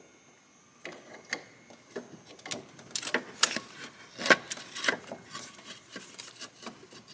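A replacement alternator being worked down into its mounting in a Saab 9-3 engine bay: irregular knocks, clicks and scraping as it is handled against the engine, starting about a second in and busiest around the middle.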